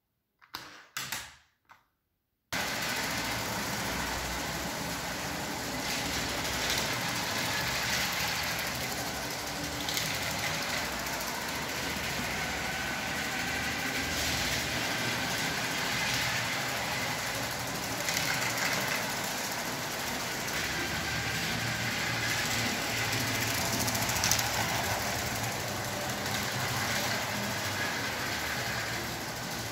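Vintage Lego 12V train running on its track: a steady mechanical whirr of the electric motor and rolling wheels with a thin high whine. It starts suddenly about two and a half seconds in, after a few faint knocks.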